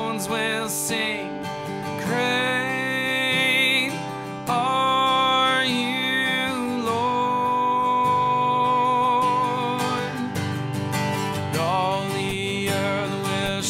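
Contemporary worship song: acoustic guitar strumming under long, held sung notes with vibrato.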